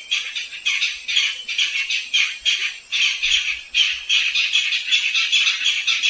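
Barred rail (sintar zebra) calling: a continuous run of harsh, rasping notes in quick succession, repeated over and over as a lure call.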